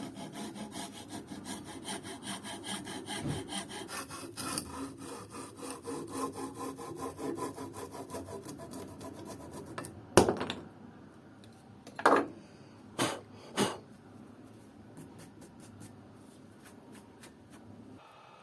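Rapid back-and-forth strokes of a hand tool working wood, about four or five a second. The strokes stop a little past the middle for a few loud knocks, then carry on more faintly.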